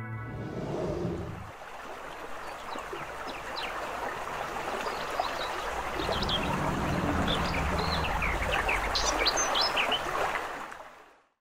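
Stream water running steadily, with small birds chirping many times above it; the sound fades out near the end.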